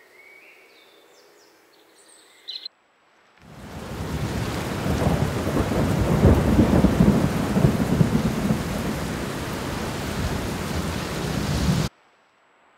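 Faint bird chirps, then a loud crackling, rumbling noise right on the microphone for about eight seconds that stops abruptly.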